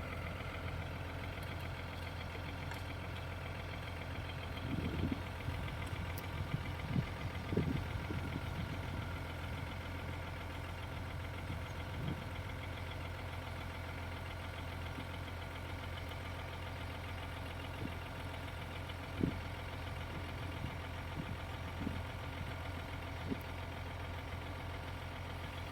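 Hitachi EX220-3 excavator's diesel engine running steadily at low revs, with a few short clunks scattered through, several close together early on and single ones later.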